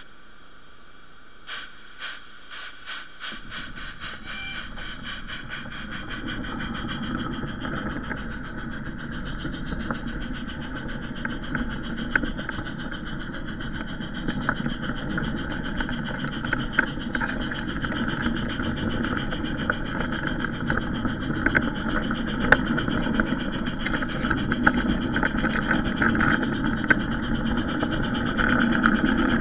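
A garden railway train starting off and running along its track, picked up from a wagon riding on it: a short run of quick clicks, then from about three seconds in a rumbling clatter of wheels on rails that grows louder, with scattered sharp clicks.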